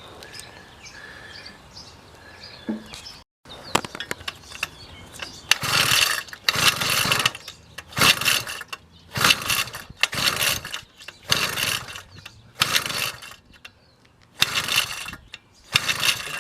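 80cc two-stroke motorized-bicycle engine being turned over and failing to start: about five seconds in, a string of loud surges begins, one roughly every second.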